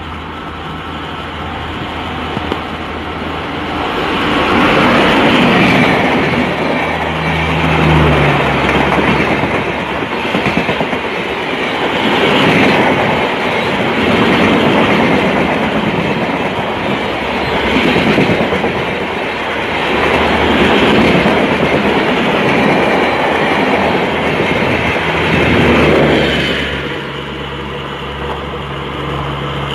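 A WAP7 electric locomotive and its express coaches passing close by at speed: a loud rushing rumble with wheels clattering over the rail joints, swelling and fading as the coaches go by. It cuts off sharply about 26 seconds in, leaving a quieter steady low hum.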